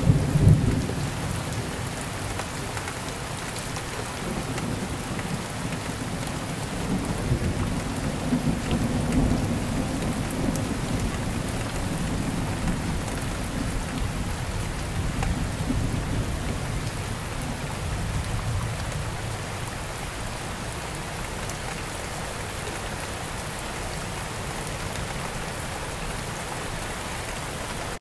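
Steady rain falling on palm fronds and broad-leaved garden plants, with low thunder rumbling under it. The rumble is strongest right at the start and swells a few more times before the rain settles into an even downpour.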